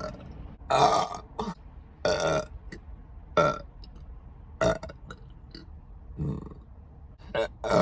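A person burping over and over: about seven short, loud burps, roughly a second apart, one of them fainter.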